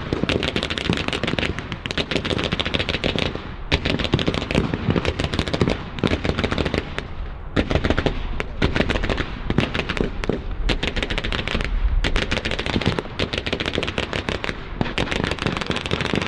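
Sustained blank gunfire from rifles and machine guns in a staged battle: rapid overlapping bursts and single shots, with brief lulls between flurries.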